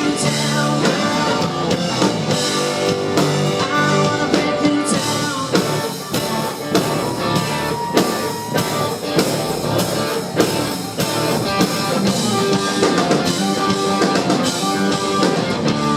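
Country rock band playing, with electric guitars and a drum kit keeping a steady beat.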